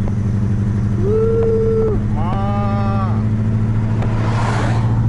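Fiat Palio Weekend engine running steadily, heard from inside the cabin. About a second in comes a short flat tone lasting about a second, then a brief rising-and-falling call, and near the end a rush of noise.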